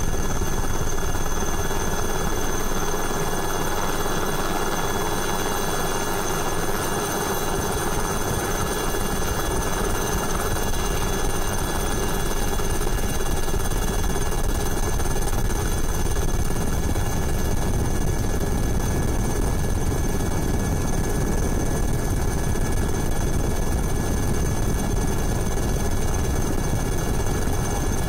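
Helicopter in flight, heard from aboard: a steady rotor and turbine drone with fixed high whining tones over it.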